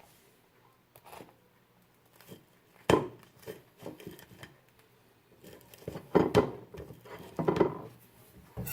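Kitchenware being handled: several separate clanks and scrapes of utensils against pans or dishes, the loudest about three seconds in and a cluster of them near the end.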